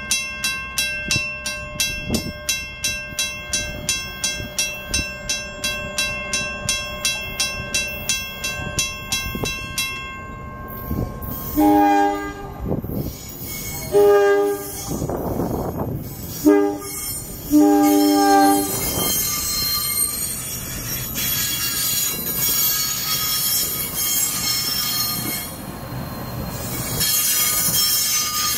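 A Safetran grade-crossing bell rings rapidly, about three strokes a second, and stops about ten seconds in. An Arrow III electric multiple-unit train then sounds its WABCO AA-2 horn in the crossing pattern, long, long, short, long. The train rolls through the crossing, its wheels squealing.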